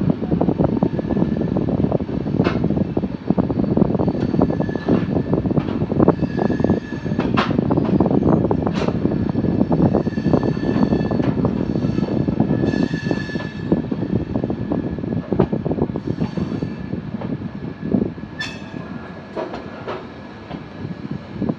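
Passenger train running on the track: a loud, steady rumble with wheels clacking over rail joints, and now and then a thin high squeal of wheel on rail.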